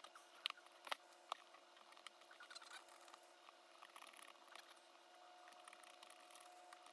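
Faint clicks and light scratching of a tool working at a staple in an old book's binding. There are a few sharp clicks in the first second and a half, then a run of small scratches.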